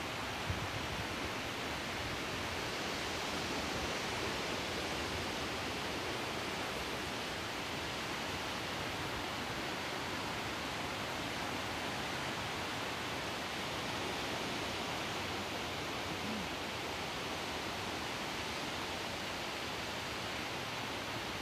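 Steady, even hiss of outdoor background noise with nothing standing out, and one small click about half a second in.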